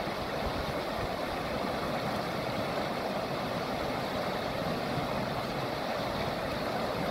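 River rapids rushing steadily: fast whitewater pouring over rocks, an even continuous noise with no let-up.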